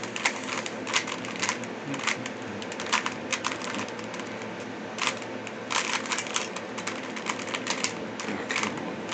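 Rubik's Cube being turned by hand during a solve: uneven plastic clicks and clacks as the layers are twisted, coming in quick little runs with short pauses between.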